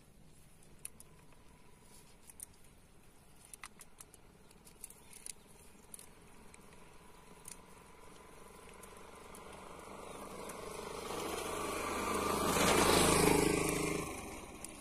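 A motor vehicle passing by: its engine grows louder over several seconds, is loudest near the end, then fades quickly. Faint scattered clicks come before it.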